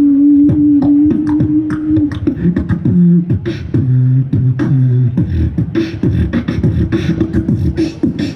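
Live beatboxing: a hummed note held for about two seconds under sharp percussive clicks, then a shifting vocal bass line with a quick click-and-snare beat.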